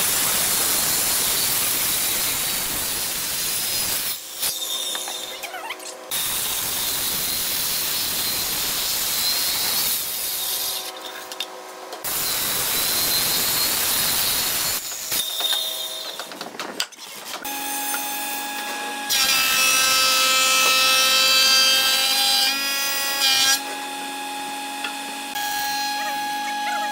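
Woodworking power machines cutting hardwood: several stretches of loud, steady cutting noise that start and stop abruptly. From about two-thirds of the way in, a machine motor runs with a steady whine made of several tones.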